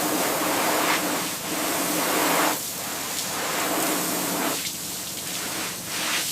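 Water spraying and spattering on a hard surface, a steady hiss that swells and eases in uneven surges.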